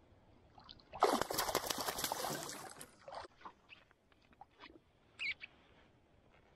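A hooked northern pike thrashing and splashing at the water's surface for about two seconds, starting about a second in. It is followed by scattered small clicks and a brief high squeak.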